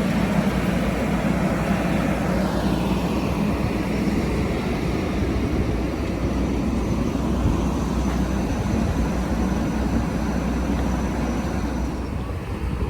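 Aircraft engine noise: a steady rumble with a whine that falls in pitch over the first few seconds, then a thin high whine held through the middle before it stops near the end.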